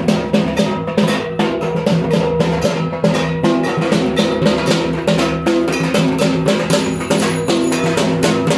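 Music with a melody over a fast, steady drum beat.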